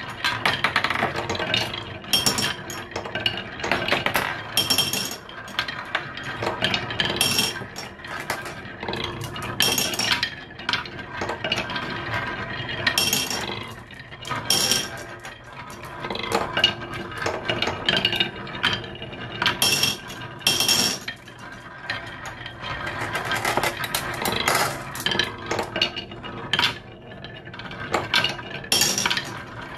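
Glass marbles rolling down the zigzag grooves of wooden HABA slope boards: a continuous rolling sound over the wood, broken by frequent sharp clinks and clicks as the marbles strike the curved groove walls.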